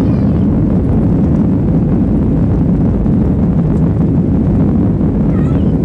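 Ryanair Boeing 737-800 jet engines at takeoff power: a loud, steady, deep rumble with no breaks.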